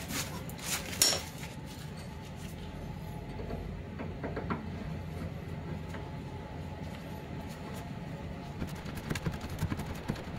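Metal clinks and taps of a hand tool against steel suspension parts as a socket on an extension bar is worked onto a nut: a few sharp clinks in the first second, then scattered lighter ones. A steady low hum runs underneath.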